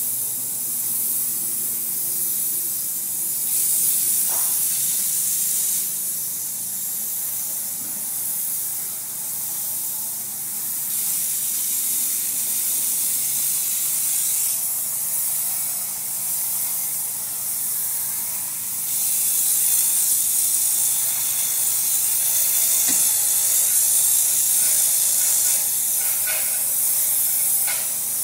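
Water spraying hard from a hand-held spray wand onto fabric dog beds: a steady hiss that gets louder and quieter in stretches as the trigger is worked and the jet moves across the beds, over a faint steady machine hum.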